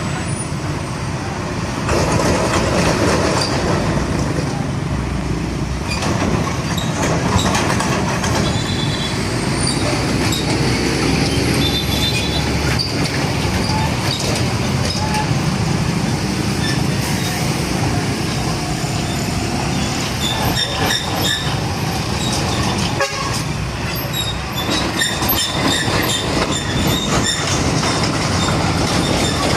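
A heavy vehicle running close by: a loud, steady rumble and rush of engine and wheel noise, with thin, high squeaks in the last third.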